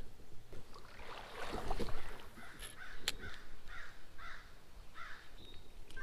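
Water sloshing around the camera as it is lifted out of the creek, then a bird calling five times in a row, about every half second.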